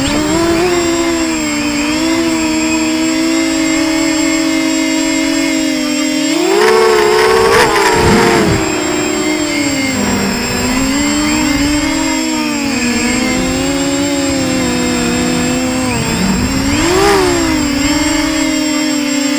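Brushless motors and propellers of a Versacopter 280 quadcopter whining in flight, heard from on board the craft, several pitches shifting with the throttle. The pitch rises sharply and falls again with a burst of throttle about seven seconds in, and once more briefly near the end.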